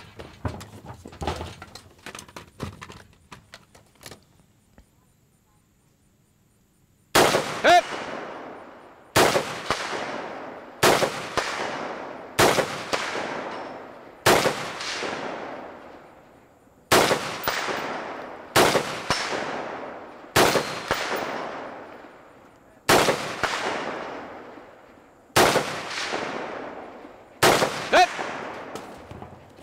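A rifle fired from prone, about a dozen single shots spaced a second and a half to two and a half seconds apart, each trailed by a long echo. Before the shooting, light clatter of gear being handled, then a few seconds of near quiet.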